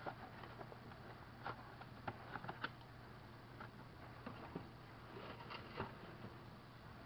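Scattered light clicks and taps of kitchen items being handled while making coffee, a cluster of them about two to three seconds in and more near the end, over a faint steady low hum.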